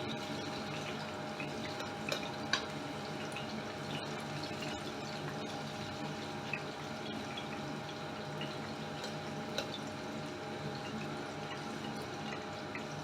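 Hot frying oil left in the pan after frying fish, crackling and spitting faintly in small scattered pops over a steady low hum.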